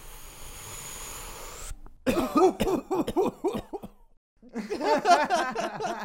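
A person taking a long drag on a freshly lit joint, a steady hiss for under two seconds, then coughing hard in two rapid bouts.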